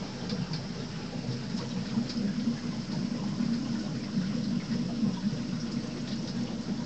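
Aquarium water circulating: a steady wash of moving, trickling water from the tank's filtration, with scattered small drip-like ticks.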